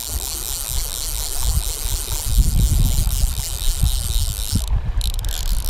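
Steady rush of a flowing river, with gusts of wind buffeting the microphone in low rumbles that are strongest around the middle.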